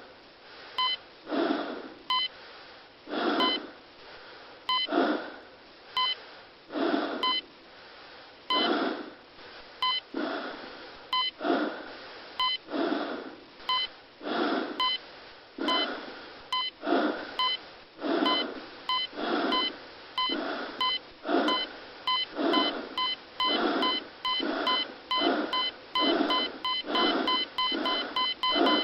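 A short electronic beep repeats over a run of breathy bursts of noise, about one a second at first. Both speed up steadily, and the beeps come in a rapid run near the end.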